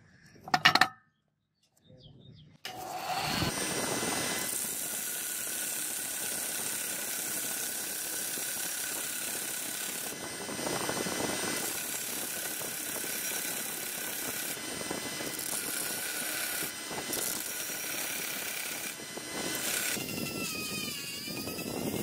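A clink of metal pieces knocked together, then a belt sander starts and runs steadily, grinding a rough cast-metal piece pressed flat on its abrasive belt. Near the end it gives way to a rotary tool with a small sanding drum, its whine gliding up and down in pitch as it sands a metal piece.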